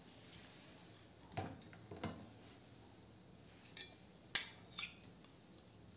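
A metal spatula and spoon clinking and scraping against the inside of a pressure cooker as butter is pushed into the hot pot, a handful of short knocks with quiet between them, the loudest about four and a half seconds in.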